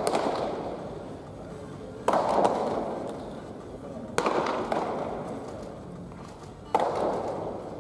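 Baseballs smacking into catcher's mitts during indoor catch practice: three sharp pops about two seconds apart, each trailing off in a long echo of the hall.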